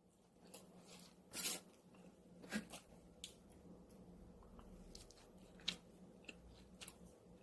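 Quiet eating sounds: chewing, with scattered light clicks and a brief rustle about a second and a half in.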